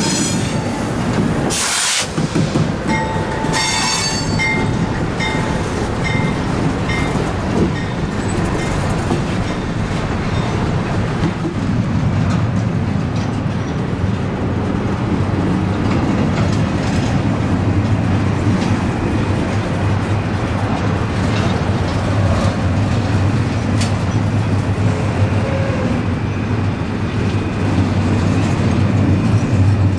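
Train running on the rails with a steady rumble of wheels. There is a sharp knock about two seconds in, and a brief high squeal a few seconds in.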